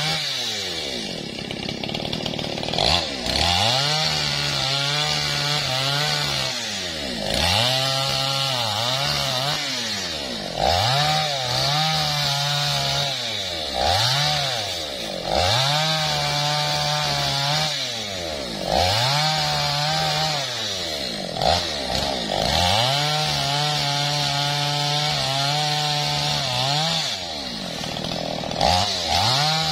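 Maestro mini two-stroke chainsaw bucking felled teak logs. The engine is throttled up to full speed for each cut and drops back toward idle between cuts, about nine times over.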